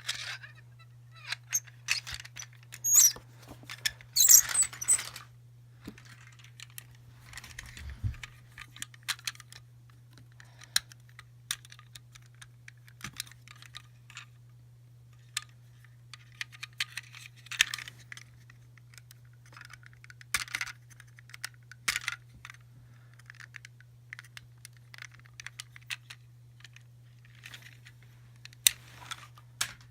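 Small plastic toys and surprise-egg capsules being handled: scattered clicks, clatters and short rattles, busiest a few seconds in, over a steady low hum.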